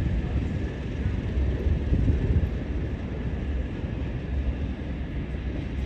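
Class 37 diesel locomotives running as the train draws away: a steady low rumble with a faint, steady high whistle over it.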